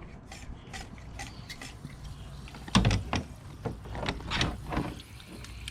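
Hand pump of a coolant pressure tester being worked in repeated short strokes, with a few louder strokes about halfway through, to pressurize a car's cooling system and look for a leak.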